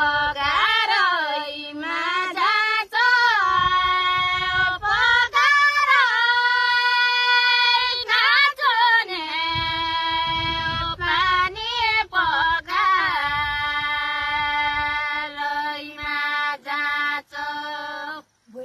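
A young female voice singing a Nepali folk melody unaccompanied, with long held notes that bend and ornament between phrases. A low rumble sits underneath at times.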